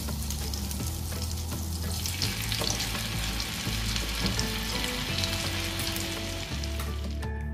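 Melted butter sizzling and foaming in a hot frying pan. A piece of yoghurt-marinated tandoori chicken goes into the pan about two seconds in, and the sizzling grows louder. It cuts off suddenly just before the end, giving way to music.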